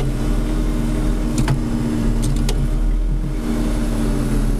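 John Deere 4630's six-cylinder turbo diesel running steadily under load while pulling a chisel plow, heard from inside the cab. A few sharp clicks come about a third and halfway through.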